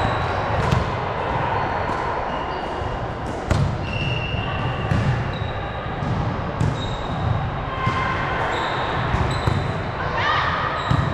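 Volleyballs being hit and bouncing on a gym floor, heard as scattered sharp smacks, mixed with short high squeaks of shoes on the court.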